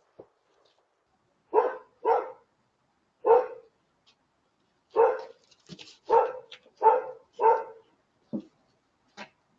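A dog barking: about seven loud, short barks in irregular groups, with a few fainter ones between.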